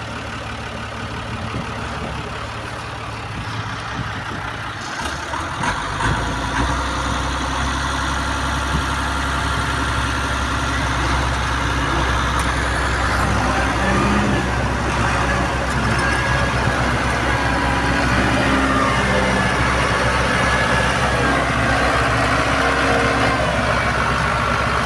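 Tractor diesel engines running; about six seconds in, the towing tractor's engine picks up and runs louder under load as it drags a bogged tractor out of the paddy mud on a chain.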